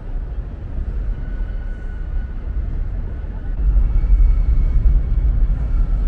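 Loud low rumble of outdoor noise with no clear single source, growing louder about three and a half seconds in, with a few faint thin tones above it.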